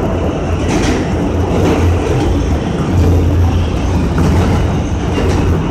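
R160 subway train running through a tunnel, heard from inside the lead car: a steady, loud rumble of wheels on rails.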